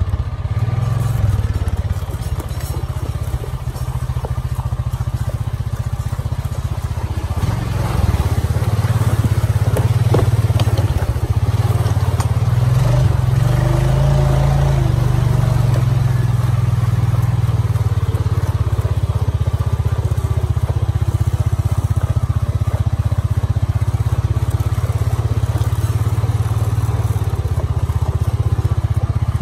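ATV engine running steadily at low speed close to the microphone, growing louder about eight seconds in.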